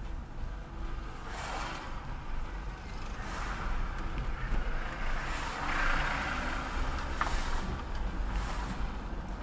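Low steady road and engine rumble heard from inside a slowly moving car, with hissing swells as oncoming vehicles pass; the loudest swell, about six seconds in, comes as a large dump truck goes by. A short click sounds a little after.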